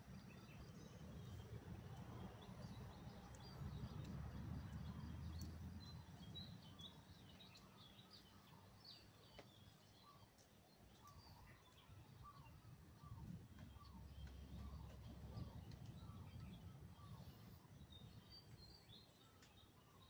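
Faint outdoor garden ambience: small birds chirping on and off, with a run of short repeated calls through the middle, over a low rumble.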